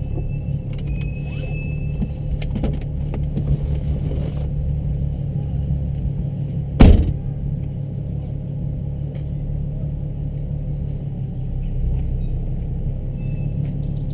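Car engine and road noise, a steady low drone while driving, with one sharp loud thump about halfway through.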